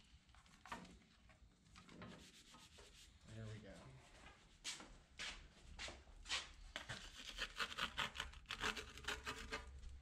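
Faint rubbing and handling of a topped pizza on a metal pizza peel, then, from about halfway, a wood fire in a brick pizza oven crackling in irregular sharp snaps that grow thicker as the pizza is slid in.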